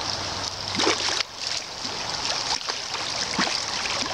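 A hooked steelhead thrashing in shallow water at the creek's edge: several brief splashes over a steady wash of moving water.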